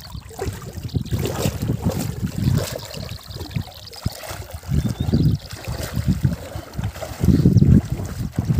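Water sloshing and splashing around legs wading through shallow river water, with gusts of wind buffeting the microphone in low rumbling surges, strongest near the end.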